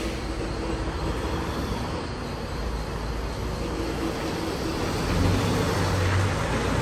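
Semi-truck diesel engine running as the tractor-trailer reverses, with a low hum that gets louder about five seconds in.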